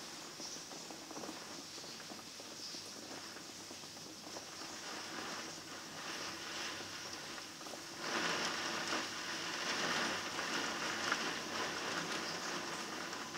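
Heavy rain pouring down, growing louder about eight seconds in.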